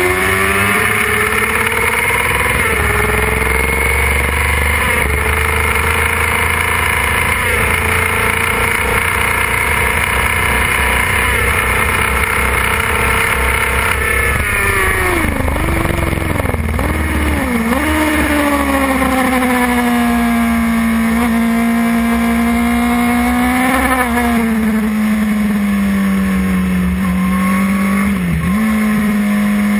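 Suzuki GSX-R 600's inline-four engine at racing revs, heard from on board. It climbs through the gears with short steps at each upshift. About halfway through the revs drop and jump three times in quick succession, as on downshifts under braking, then climb again and hold high with two brief dips near the end.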